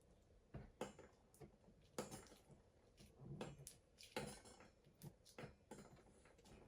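Faint, irregular scrapes and clicks of a plastic spoon working a very thick paste.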